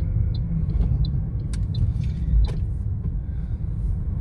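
Steady low rumble of a moving car's road and engine noise heard inside the cabin. A light ticking, about three a second, stops about a second in.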